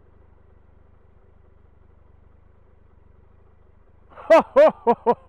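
Faint steady low engine hum from the idling motorcycle. About four seconds in, a man laughs out loud in a run of five or six short whooping bursts, the last one drawn out.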